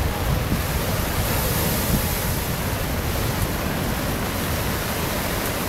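Rough storm surf breaking against a concrete seawall and churning, a steady rush of noise with a deep rumble, with wind on the microphone.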